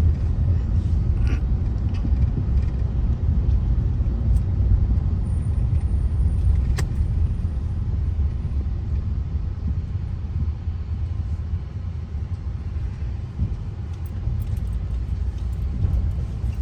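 Steady low rumble of a car driving along a road, heard from inside the cabin, with a few faint clicks.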